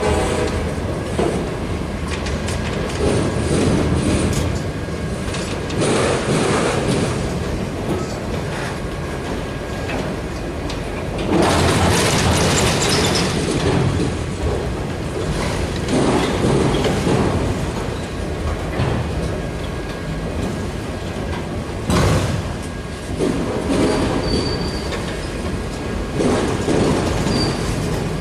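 Freight train of auto rack cars rolling past: a steady rumble of steel wheels on rail that swells every few seconds as car trucks pass. A faint high wheel squeal comes in near the end.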